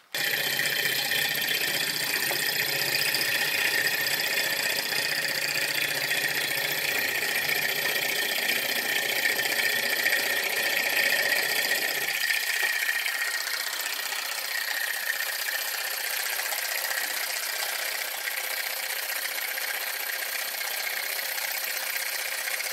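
Miniature model Stirling engine running steadily, with a fast mechanical whirr and rattle. The lower part of the sound drops away about halfway through.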